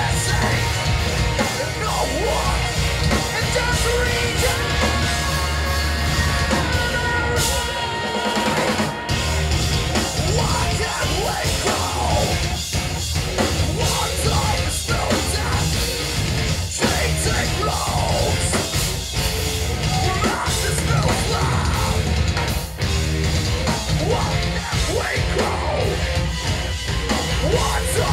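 Live progressive metal band playing: heavily distorted guitars and drums, with the singer yelling and singing into the microphone over them.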